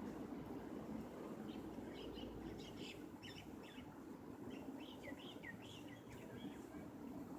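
A bird chirping in a quick run of short notes, many of them falling in pitch, over a steady low background hum.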